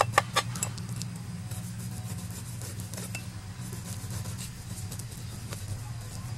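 Cleaver blade scraping the scales off a whole fish on a wooden chopping board: a run of rasping strokes, with a few sharp clicks in the first second, over a steady low hum.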